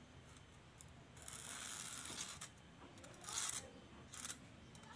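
Faint scratchy strokes of a guide line being drawn on coconut shell: one longer stroke about a second in, then a few short ones.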